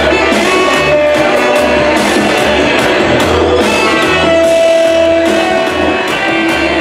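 Loud live electronic dance music with a live drum kit, played over a festival sound system: a steady pulsing bass beat under held synth notes, with one long note held in the middle.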